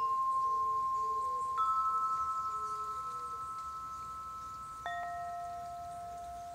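Quartz crystal harp tuned to 432 Hz: its tubes are struck with a felt-headed mallet. Three single notes sound, one at the start, a higher one about a second and a half in, and a lower one about five seconds in. Each rings on long and pure and overlaps the last as it fades.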